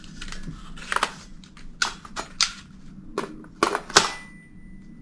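Sharp, irregular clicks and knocks of an airsoft rifle being handled, about seven over a few seconds, the loudest near the end.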